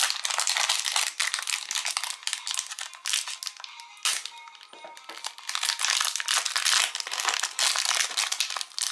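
Thin clear plastic wrapper crinkling and crackling as it is handled and opened to free a small toy. The crackling comes in two long spells with a quieter gap midway, over faint background music.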